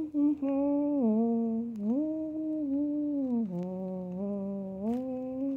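A child humming a slow tune with the mouth closed: a few short notes, then long held notes that step down and back up in pitch.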